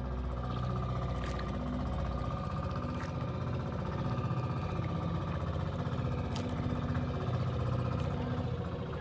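A small engine running steadily with a fast, even pulse, and a few light clicks or knocks over it.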